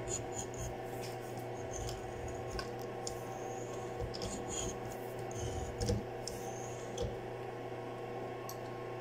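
A boring-bar cutter scraping a keyway in steel in short, irregular strokes as the mill quill is worked up and down by hand, with small clicks among the scrapes. A steady hum runs underneath.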